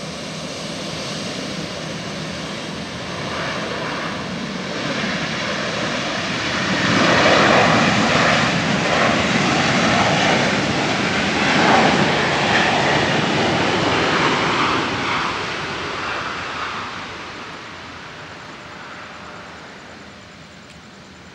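Airbus A350-900's Rolls-Royce Trent XWB jet engines running as the airliner rolls slowly along the runway. The sound swells to a peak about halfway through, then fades away toward the end.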